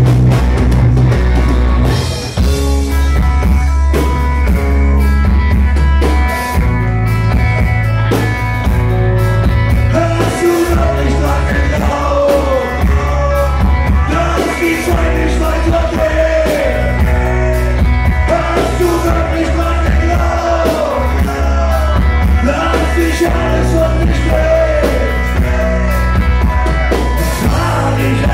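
Live rock band playing loudly: a male singer over electric guitar, heavy bass and a drum kit.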